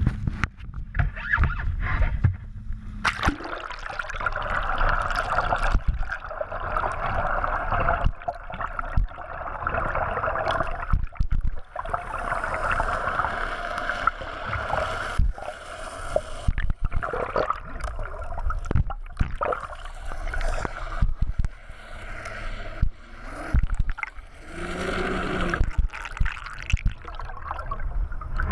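Muffled rushing and gurgling water around a camera dragged through the sea behind a moving boat, with frequent knocks and splashes as the housing is buffeted near the surface.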